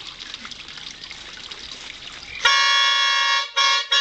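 Orange plastic football-fan horn (toeter) blown by mouth: about two and a half seconds in, a loud, steady one-note blast of about a second, then two shorter blasts after brief breaks.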